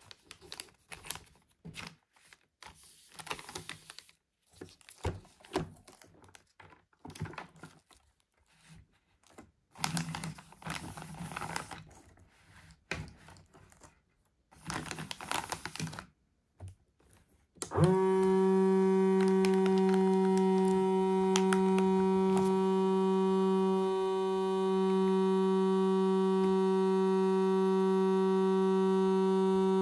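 Plastic vacuum bag and machine being handled with crinkles and clicks, then a food vacuum sealer's pump starts about two-thirds of the way in, quickly winding up to a steady hum that runs on, evacuating the bag.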